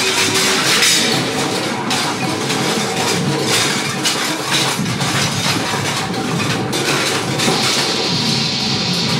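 Harsh experimental noise music: a dense wash of loud noise broken by irregular clattering, crunching and clinking hits, with no beat or melody.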